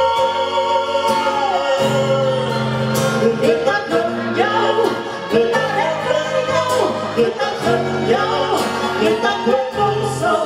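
Pop ballad sung as a male and female duet over a live band. A long held note ends about a second in, and the sung melody carries on over the band.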